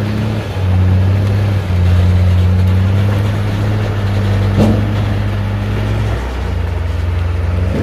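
Scania truck's diesel engine labouring under heavy load as it pulls a loaded lowbed trailer through a tight uphill bend. The deep, steady note dips briefly twice early on, a single sharp knock sounds midway, and the engine note drops to a lower, rougher running about six seconds in.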